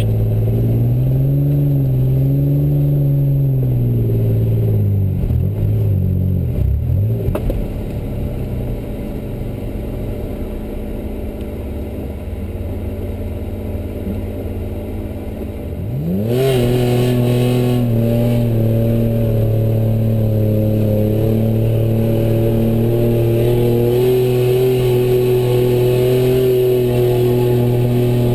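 Mitsubishi Pajero's engine running: its revs rise and fall over the first few seconds, drop to a lower, quieter running about seven seconds in, then climb sharply about sixteen seconds in and hold steady at higher revs.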